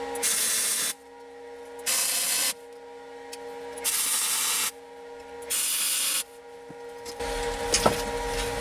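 Telwin Maxima 160 MIG welder running flux-core wire, laying four short tack welds: four separate bursts of crackling arc hiss, each under a second long and about a second and a half apart. A steady hum runs underneath.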